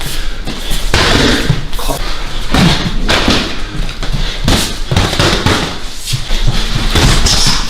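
Punches and kicks landing on a fighter in a flurry: a run of sharp, separate impacts at uneven intervals.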